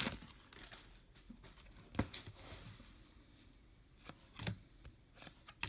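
Faint handling of trading cards: a few soft clicks and taps of card stock as cards are flipped and set down, the sharpest about two seconds in and another pair near four and a half seconds.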